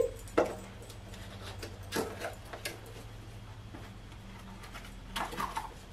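A cardboard toy box being handled and opened: a few scattered light crinkles and clicks.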